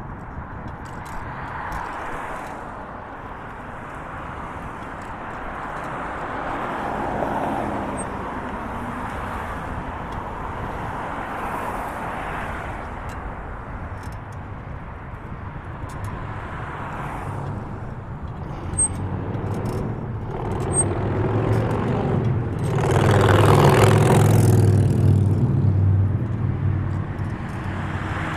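Road traffic passing, with cars going by in swells. One louder vehicle with a low engine note passes close about three quarters of the way through.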